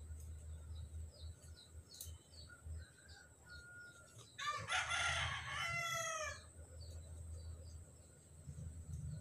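A rooster crowing once, a call of about two seconds starting a little before the middle, with its pitch falling at the end. Faint short bird chirps repeat throughout.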